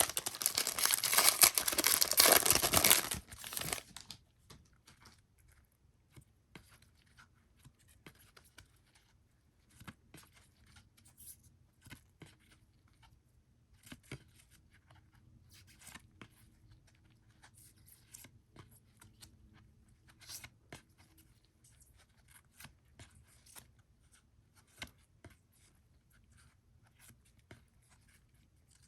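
Packaging of a trading-card blaster box being torn open, a loud ripping and crinkling that stops about three and a half seconds in. After that come soft, scattered clicks and rustles of cards and wrapping being handled.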